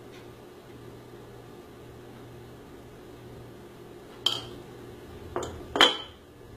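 Hands kneading crumbly kibe dough in a plastic bowl, with three sharp knocks in the second half, the last the loudest, over a steady low hum.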